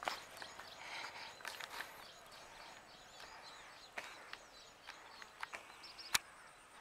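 Faint outdoor background with small birds chirping, and a few light clicks, the sharpest about six seconds in.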